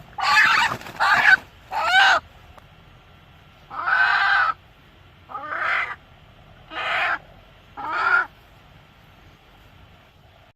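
A chicken squawking: seven loud, harsh calls, three in quick succession, then four more spaced about a second apart.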